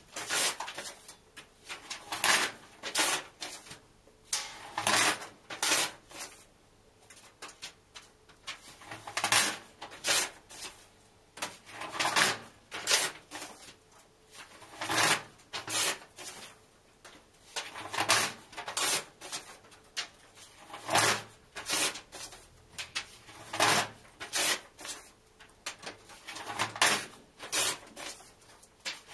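Book pages being ripped out and torn in half by hand: short bursts of paper tearing, in clusters of two or three every two to three seconds.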